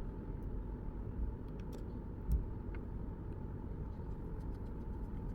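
Faint small clicks and ticks of tiny tools and screws on an iPhone's internal parts, with one soft knock a little over two seconds in, over a steady low background rumble.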